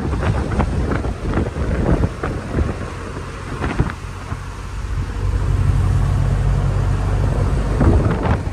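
Wind rumbling on the microphone while riding in a moving car, over the car's road noise. The low rumble swells and stays strongest for a few seconds past the middle.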